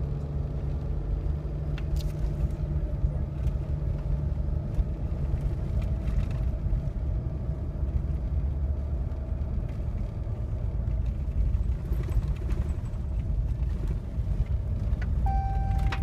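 Pickup truck engine idling, a steady low rumble heard inside the cab. Near the end a seatbelt warning chime begins with a short steady tone, sounding because the driver's belt is unbuckled.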